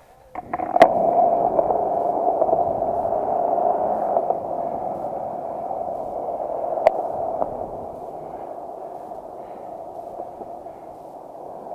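Skateboard wheels rolling on concrete: a sharp clack near the start as the board gets going, then a steady rolling rumble that slowly fades as the board slows, with a single sharp click about seven seconds in.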